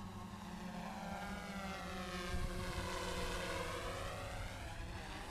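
GoPro Karma quadcopter's propellers and motors whining in flight, the pitch sweeping down and then back up about midway as the drone moves.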